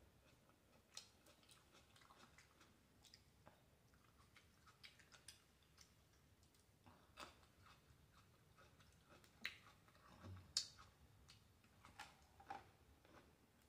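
Faint chewing of red grapes: scattered soft mouth clicks and smacks, with a few slightly louder ones past the middle.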